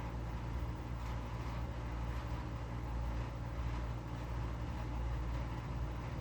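Harbor Breeze Rocket ceiling fan running, a steady low motor hum with a soft air rush, mixed with an air conditioner running in the room.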